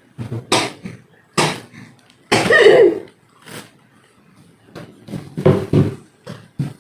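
A person coughing in a series of harsh, separate bursts, the loudest about two and a half seconds in: the persistent cough of a patient with shortness of breath.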